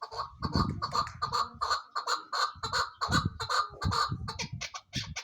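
Chukar partridge calling: a rapid run of short, sharp repeated notes, about four or five a second.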